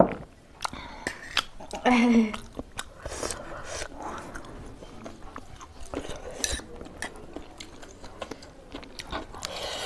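People chewing and eating spicy instant noodles, with scattered clinks of cutlery against a bowl. A loud sharp click comes right at the start, and a brief vocal sound about two seconds in.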